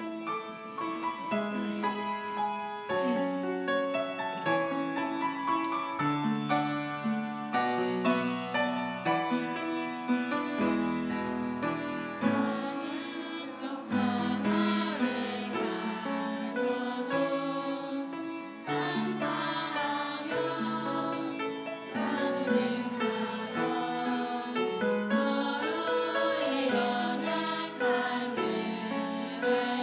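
A gospel song sung with piano accompaniment, the voices and piano continuing throughout.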